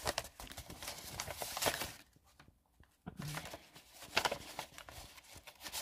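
Light rustling and clicking of a paper sheet and plastic wrap being handled, stopping for about a second in the middle.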